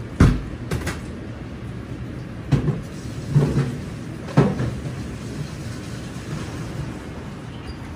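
A Chinese cleaver slicing through a block of pressed ham and knocking on a plastic cutting board: a handful of dull chops in the first half, the first the loudest, over a steady low kitchen hum.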